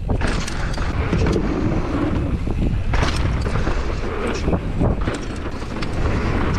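Downhill mountain bike running fast over rough trail: a steady rumble of tyres and rattling bike, with wind buffeting the camera microphone. A few sharp knocks come through as the bike hits the ground, the loudest about three seconds in.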